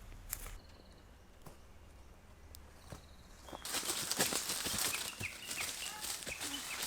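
Outdoor forest ambience with a few faint bird chirps, then, about three and a half seconds in, a louder dense crackling rustle full of small clicks.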